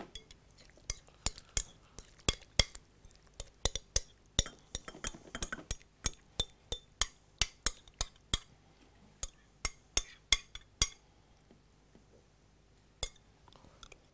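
A utensil clinking and scraping against a glass mixing bowl as salad is scooped out into a serving bowl: quick, irregular sharp clinks, several a second, stopping about eleven seconds in, with one more near the end.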